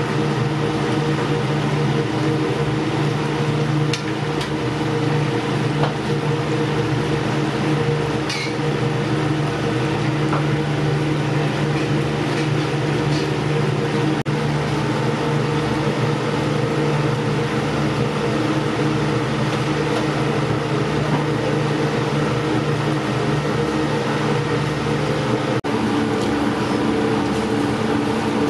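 Steady mechanical hum of kitchen ventilation running beside a stove where butter sauce simmers in a pan, with a few light clicks of utensils.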